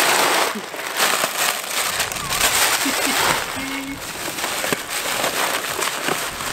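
Plastic packaging and bubble wrap rustling and crinkling in uneven surges as it is pulled out of a hard case.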